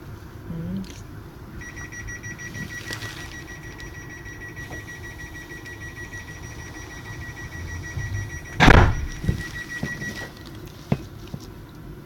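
Train door warning alarm: a rapid, high-pitched electronic beeping that runs for about eight seconds over the low rumble of the carriage, with one loud thump about nine seconds in.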